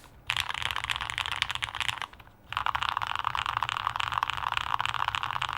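Fast typing on a plateless HEX.4B custom mechanical keyboard with lubed and filmed Cherry HG Black linear switches and GMK keycaps: two quick runs of key strokes with a brief pause about two seconds in, stopping near the end.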